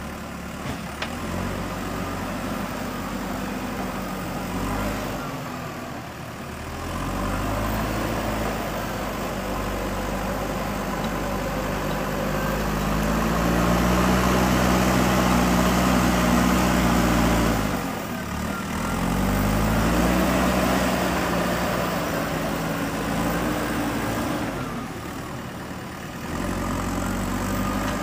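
Diesel engine of a JCB 3DX backhoe loader rising and falling in revs as it works under hydraulic load loading mud. It revs up about a quarter of the way in, holds high, drops briefly about two-thirds through, revs up again and eases off near the end.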